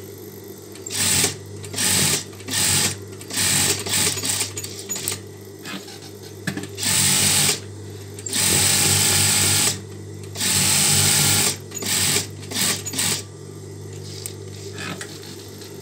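Electric sewing machine stitching in short runs, starting and stopping over and over, the longest runs about a second, over a low steady hum.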